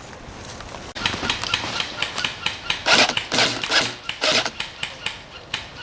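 Footsteps crunching quickly through dry leaves and brush, starting about a second in, in a quick irregular run of crunches that is loudest around the middle.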